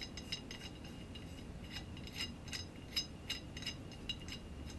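Small metal Allen-head screw being threaded by hand into a camera slider's threaded insert, giving a string of light, irregular metallic clicks and ticks.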